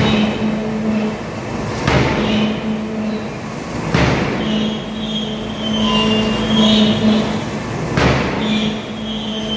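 A forging hammer's ram striking a red-hot steel workpiece in closed dies: four heavy blows, about two seconds apart with a longer gap before the last, over a steady machine hum. A high metallic squeal comes and goes between the later blows.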